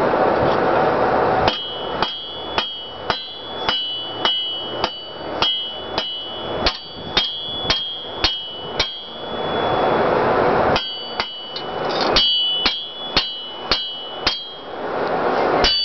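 Blacksmith's hammer striking a hot mild-steel sword blank on an anvil, about two blows a second, each with a high metallic ring, in two runs of strikes. A rushing noise swells before the first run and in the pause between them.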